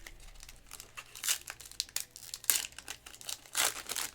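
Foil trading-card pack wrapper being torn open and crinkled, in several sharp crackling bursts about a second apart.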